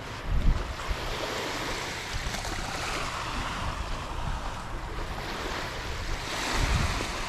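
North Sea surf washing onto a sandy beach, swelling and ebbing, with wind gusting on the microphone about half a second in and again near the end.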